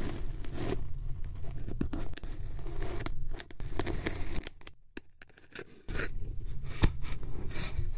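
Kinetic sand scraping and crumbling as a cut slab of it is slid off a thin flat board onto a packed block of sand, a gritty crackling with small clicks. It drops away briefly a little past the middle, then starts again.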